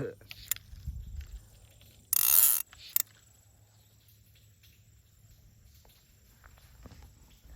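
A fly reel's click-pawl ratchet buzzing for about half a second as line is pulled off it, about two seconds in, followed by a single click.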